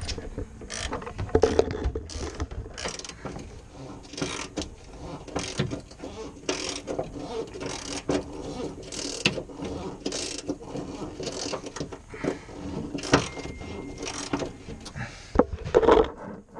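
Hand tools at work under a car, with a ratchet wrench clicking and metal parts clinking at irregular intervals while bolts are worked loose. A louder knock comes near the end.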